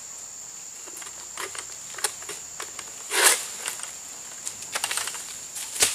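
Steady high insect drone with scattered crackling and rustling as a pole sickle (egrek) works at an oil palm's fronds and fruit-bunch stalk, with a loud rasping scrape about three seconds in and a sharp crack near the end as the cut goes through.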